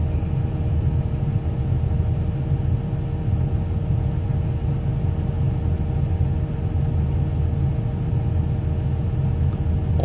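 Excavator diesel engine idling steadily, heard from inside the cab as a low rumble with a steady hum.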